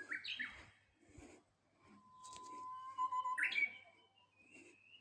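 Japanese bush warbler (uguisu) singing its "hoo-hokekyo" song, a long held whistle ending in a quick flourish of higher notes. One song ends in its flourish at the very start; a second begins about two seconds in and ends with its flourish about three and a half seconds in.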